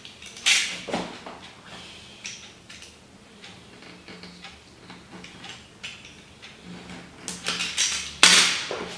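Handling noise from a hand wire stripper working on battery leads: a few sharp clicks and clacks over light rustling, the loudest clack near the end.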